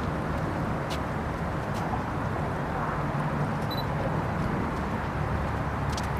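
Steady low outdoor background rumble, with a few faint clicks and a brief high beep a little under four seconds in.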